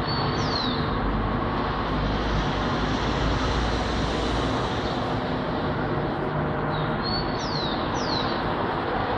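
Steady traffic noise from a street, with a few short high falling bird chirps about half a second in and again near the end.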